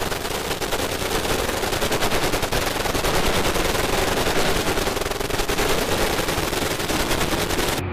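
Dual-mounted M240 7.62 mm machine guns firing long, unbroken bursts of rapid automatic fire. The fire cuts off suddenly near the end.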